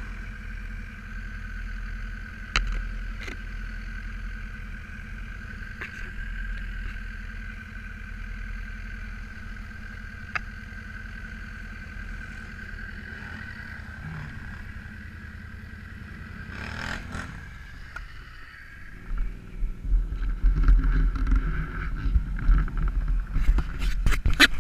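ATV engine idling steadily, then about 19 seconds in turning louder and uneven, as if the machine is being throttled and driven off over rough ground.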